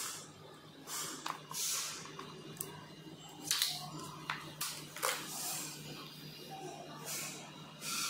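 Hands handling wires and plastic plug connectors in an electric scooter's battery compartment: soft rustling with a few small sharp clicks, over a steady low hum.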